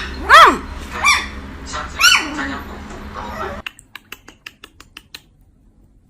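A puppy yelping: three short, high, squeaky yelps about a second apart, each rising then falling in pitch, followed by a run of faint clicks.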